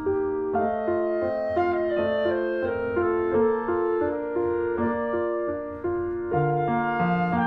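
Instrumental background music: a melody of evenly paced notes, with lower notes joining in about six seconds in.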